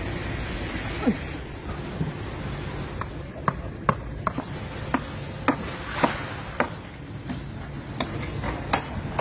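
A large knife chopping into a shark carcass: about a dozen sharp, irregular knocks over a steady background hum.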